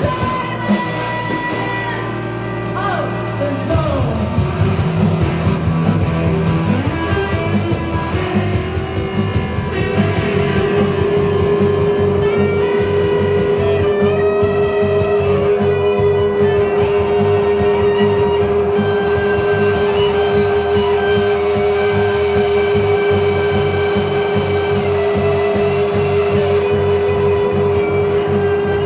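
Live rock band playing, electric guitar over drums. The full band comes in about four seconds in, and a long held note sounds through from about ten seconds in.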